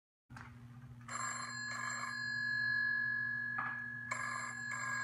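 Telephone ringing in double rings: two short rings about a second in, then two more near the end.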